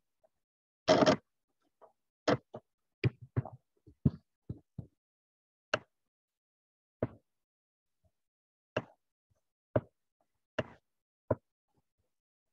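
Computer clicks: about fifteen short, sharp clicks at irregular intervals, with one longer, noisier knock about a second in, as the pages of an on-screen document are turned.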